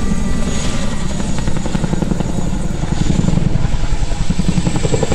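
Boeing CH-47 Chinook tandem-rotor helicopter flying overhead, its two rotors making a loud, fast, steady chopping beat.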